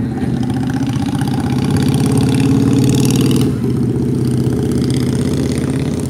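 A motor vehicle engine running close by, a steady low hum that grows louder toward the middle and changes abruptly about three and a half seconds in.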